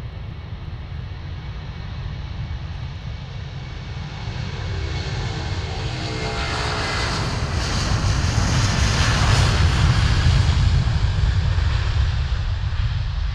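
Jet airliner passing by, its engine noise swelling to a peak about two-thirds of the way in and easing off near the end, with a heavy low rumble and a falling, sweeping tone as it approaches.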